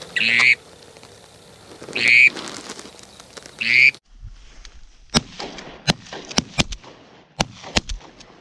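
Three loud duck quacks about two seconds apart, then a quick string of sharp cracks from several shotguns fired at ducks from the blind.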